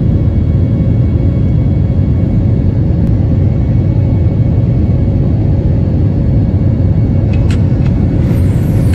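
Cabin noise of an Airbus A320 airliner in flight: the loud, steady rumble of the jet engines and rushing air heard from a window seat, with a faint steady hum over it. A few sharp clicks come near the end.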